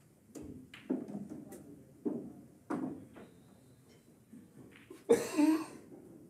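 Pool hall sounds: a few soft knocks scattered through, then a sharp clack about five seconds in, followed by a short rush of noise.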